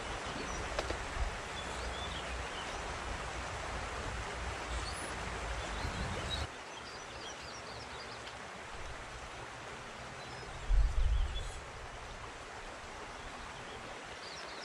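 Steady rush of flowing spring water. It turns quieter at a sudden cut about six and a half seconds in, with faint bird chirps, and a brief low rumble near eleven seconds.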